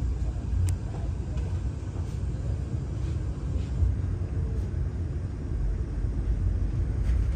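Steady low rumble of the Vande Bharat Express electric train moving off, heard from inside the coach, with one sharp click under a second in.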